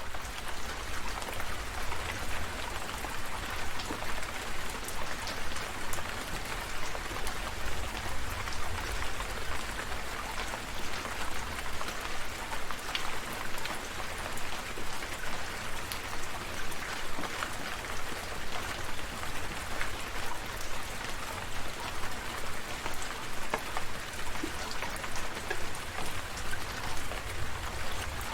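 Steady rain falling, with many individual drops striking a surface as scattered sharp ticks over a continuous hiss and a low steady rumble underneath.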